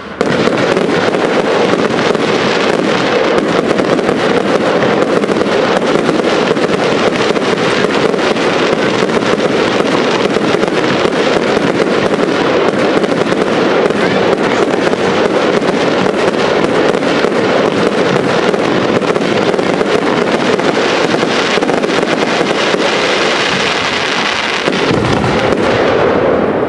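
Professional fireworks display: a dense, continuous rapid crackling of crackle-effect shells and fountains, easing slightly near the end.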